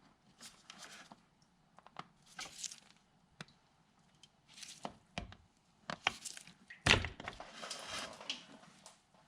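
Hands working a coolant hose connection loose on a BMW radiator: scattered sharp clicks, short scrapes and plastic knocks, with one louder thump about seven seconds in.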